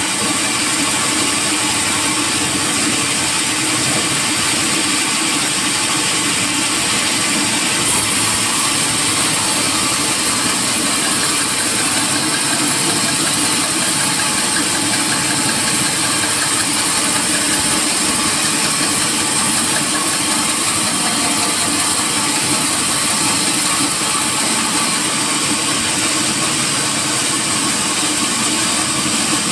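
Sawmill machinery running steadily: a loud, continuous mechanical din with no pauses.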